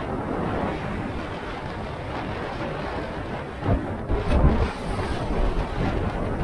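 Wind rushing over the microphone of a moving motorcycle, with the ride's road noise underneath. Louder low buffeting hits come about four seconds in.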